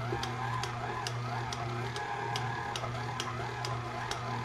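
Tilt-head stand mixer running at low speed, kneading pizza dough: a steady motor hum with a whine that rises and falls, and a regular tick two or three times a second.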